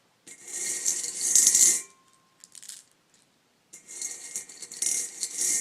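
Jelly beans rattling loudly against a container in two long bursts about two seconds apart.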